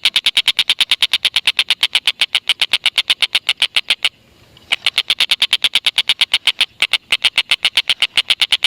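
Tengkek buto kingfisher giving its long, rapid chattering call ('ngekek'), a fast even string of sharp, high notes at about eight or nine a second. The string breaks off for about half a second near the middle and pauses briefly again later.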